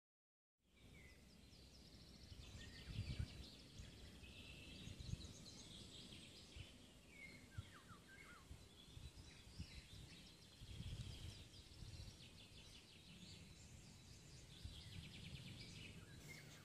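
Faint woodland birdsong: several birds giving short chirps and trills, over low, irregular rumbles.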